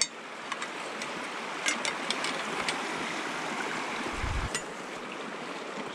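Water running through a beaver dam of sticks, a steady rushing hiss, with a few light clicks and snaps over it.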